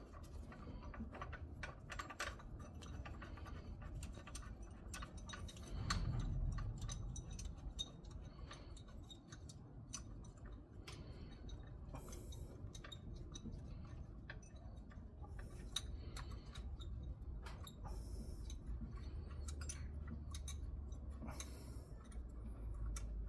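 Hand ratchet clicking in irregular short runs while the mounting bolt of a new accessory-belt tensioner is tightened.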